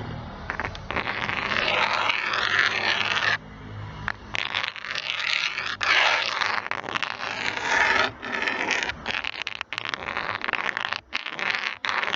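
Pen cap dragged along a laptop's surface near the speaker, a clear scratching noise in several long strokes with short breaks between them.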